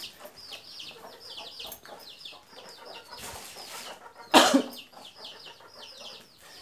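Chicks peeping steadily, a rapid string of high, downward-sliding peeps, several a second. About four seconds in, a single brief, louder sound cuts in.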